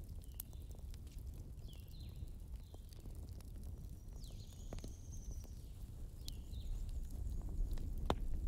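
Campfire crackling with scattered sharp pops over a steady low rumble. Short high chirps sound through it, and there is one longer, higher call about halfway through.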